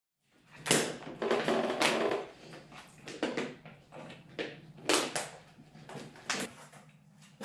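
Irregular sharp clicks and knocks of parts and tools being handled on an ATV's front end, over a faint steady low hum.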